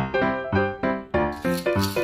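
Background music with evenly spaced notes, about three a second. Near the end, plastic dominoes clatter on a wooden parquet floor.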